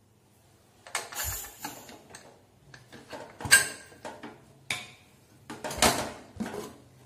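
Aluminium pressure cooker being opened by hand: a string of metal clanks, clicks and scrapes as the whistle weight is lifted off and the lid is twisted against the rim to unlock it. The loudest clank comes about halfway through.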